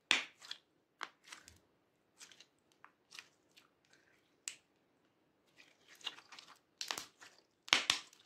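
Purple clear slime with pearl beads being squeezed and kneaded by hand: an uneven string of wet clicks and crackling pops as trapped air is pressed out, loudest just after the start and again near the end.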